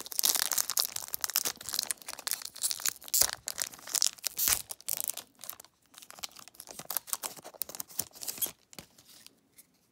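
Foil trading-card pack wrapper being torn open and crinkled by hand: dense crackling rips, loudest in the first half, dying away shortly before the end.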